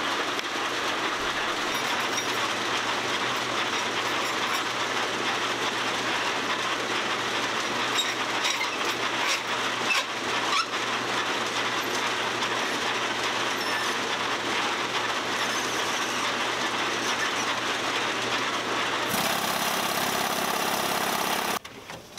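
Auto body shop machinery running steadily, a rattling rumble over a low hum. Near the end a louder hiss takes over for about two seconds and cuts off abruptly.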